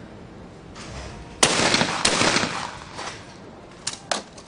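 Two shotgun shots about half a second apart, as in a skeet double, each a sharp crack followed by ringing echo. Two short sharp clicks follow near the end.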